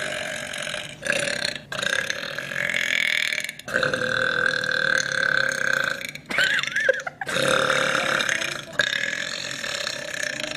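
A young woman belching in a string of long, drawn-out burps, about half a dozen, each lasting one to two seconds with short breaks between them.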